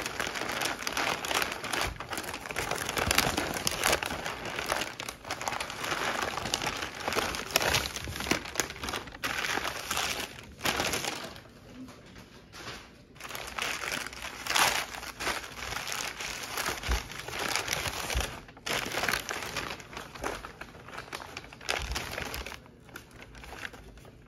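Packing paper crinkling and rustling as a wrapped item is unwrapped by hand. The rustling is nearly continuous, easing off briefly about halfway through and again near the end.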